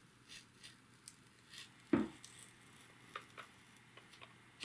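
Single-edge razor blade scoring a label along the seam of a plastic VHS cassette shell: faint short scratching strokes, with one louder tap about two seconds in and a few small ticks near the end.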